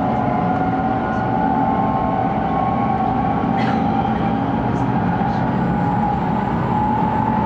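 Running noise inside a 700 series Shinkansen passenger car: a steady rumble and hiss with a mid-pitched motor whine that slowly rises in pitch as the train gathers speed.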